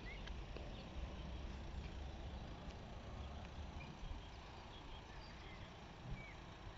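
Small birds chirping now and then over an uneven low rumble of wind.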